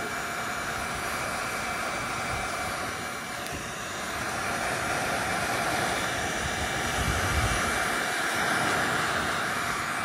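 Electric heat gun running steadily, blowing hot air onto a heat-shrink butt-splice connector to shrink it onto a wire.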